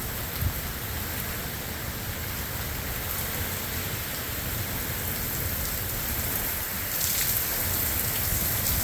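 Heavy rain pouring steadily in a thunderstorm, growing a little louder about seven seconds in.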